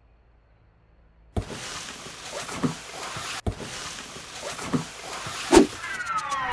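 Cartoon sound effects: after a short silence a steady rustling hiss starts, with a few soft thumps as the teddy bear hauls on the telephone cord. Near the end a falling whistle drops in pitch as the handset is pulled off the desk.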